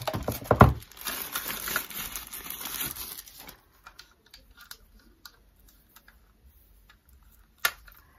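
Tissue wrapping paper rustling and crinkling as it is handled and pulled out of a box for about three seconds, with one brief louder knock about half a second in. After that, only a few faint clicks of a plastic charger and its cable being handled, and one sharper click near the end.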